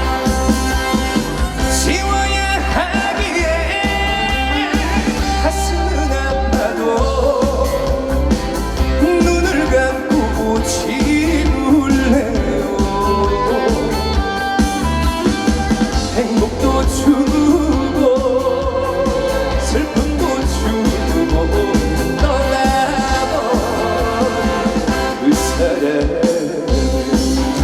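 Live trot song: a male singer singing over a band backing track with guitar and a steady bass.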